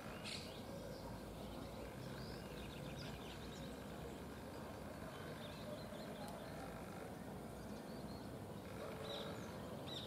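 Faint outdoor ambience of steady low background noise, with small birds chirping briefly now and then.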